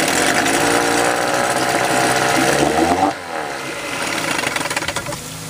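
Sears Gamefisher (Force/Chrysler) 9.9 hp two-stroke twin outboard running with its lower unit in a tub of water, held at raised revs for about three seconds, then throttled back so the revs fall away and it settles to a quieter idle.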